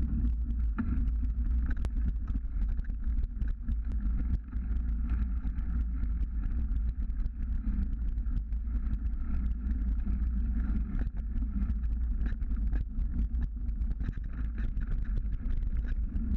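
Mountain bike riding fast down a dirt trail: wind buffeting the bike-mounted action camera's microphone under a steady rumble of tyres on the ground, with frequent clicks and rattles from the bike over the bumps.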